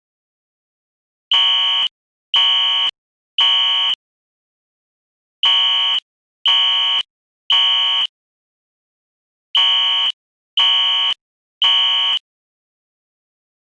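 Fire alarm horn sounding the temporal-three evacuation pattern: three buzzy, high-pitched blasts of about half a second each, then a pause of about a second and a half, repeated three times.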